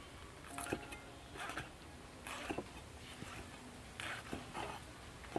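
Heavy cleaver knocking on a wooden chopping board as meat is sliced thin, a stroke about every second, unevenly spaced.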